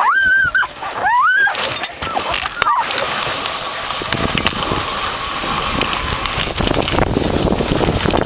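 Sled dogs of an Alaskan malamute and Siberian husky team whining eagerly in harness, a few rising-and-falling cries in the first second or so. About three seconds in the team is off, and a steady hiss of sled runners on snow and wind on the microphone takes over.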